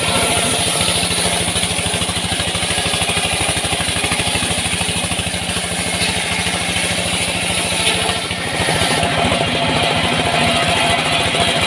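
An engine running steadily at constant speed, its rapid firing pulses even throughout, with a steady high hiss above it; the level dips briefly about eight seconds in.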